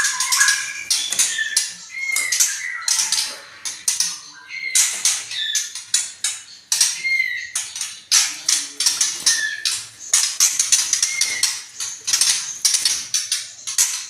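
White-rumped shama (murai batu) singing: a fast, varied run of short whistled notes, harsh chatters and rapid trills, with a short arched whistle phrase that recurs every second or two.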